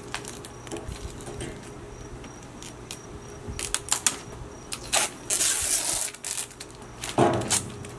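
Cardboard mailing tube being cut open with a knife: scattered clicks and scrapes of the blade on packing tape and cardboard, then a longer papery scrape about five seconds in as the rolled print slides out of the tube. A short louder sound comes near the end.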